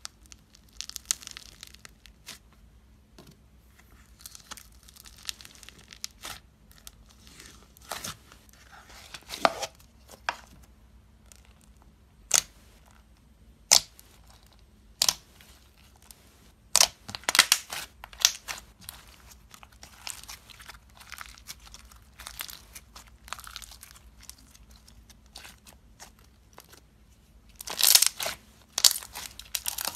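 Hands squeezing, stretching and pressing crunchy foam-bead slime (floam). It gives irregular crackles and crunches with single sharp pops, and a dense burst of crackling near the end.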